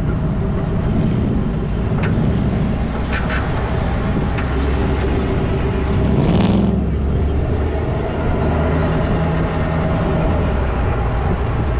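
Pickup truck engine running steadily as the truck rolls slowly, with a few short clicks and a brief louder surge about six seconds in.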